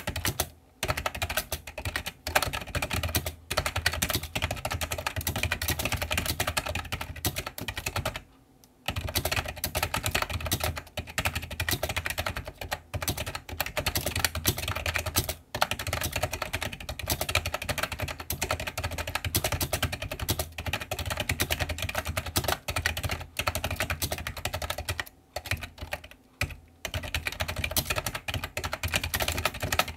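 Continuous typing on an iMAGiC G-Keyboard II Echo plunger-switch keyboard: a dense run of key clacks with short pauses about eight seconds in and again near the end.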